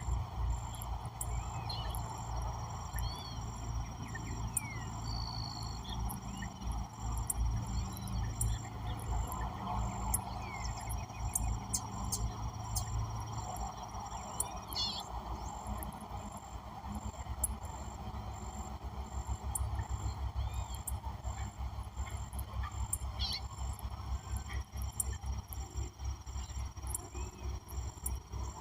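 Mixed wild birds calling, with many short chirps and whistles and some honking calls, over steady high insect tones and a low rumble.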